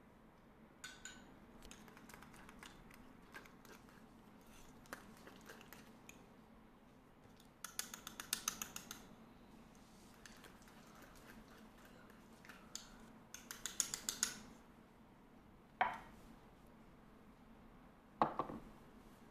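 A spoon whisking cream cheese and wasabi in a small bowl: two bursts of rapid clinking against the bowl, then two single knocks as things are set down.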